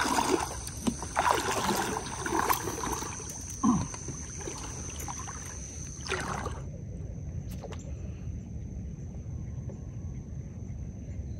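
Popping cork float jerked across the water with a rod: a handful of sharp pops and clacks with splashes over the first six seconds, the clacking meant to draw fish in. After that only a low steady rumble of wind and water remains, with a couple of faint clicks.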